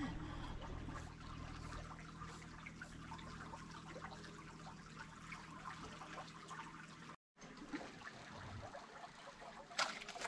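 Faint trickling of canal water, with small scattered crackles. The sound cuts out for an instant about seven seconds in, and a brief sharp noise comes near the end.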